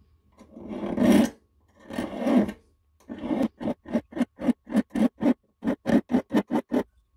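Flat hand file rasping on the rusty presser foot of a 1940s Peter Pan Model 1 sewing machine. Two slow, long strokes come first, then a quick run of about fourteen short strokes, roughly three and a half a second.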